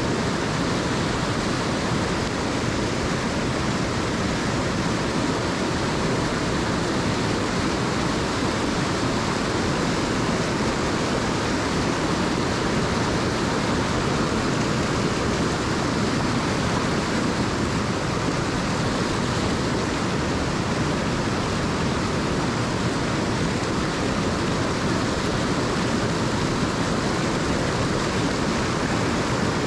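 Rushing water of a mountain stream: a steady, unbroken rush with no change throughout.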